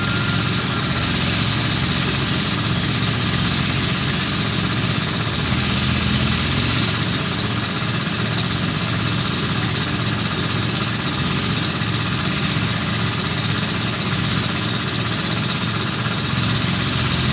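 An engine running steadily at a constant speed, with a low hum and no changes in pitch or level.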